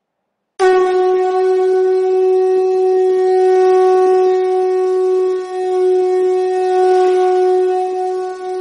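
A wind instrument holding one long, steady note that starts about half a second in, with a brief dip in loudness around the middle.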